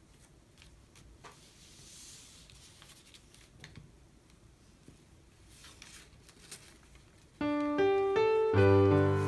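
Faint crinkling and creasing of origami paper folded by hand, with soft scattered clicks. About seven seconds in, loud piano music starts and takes over.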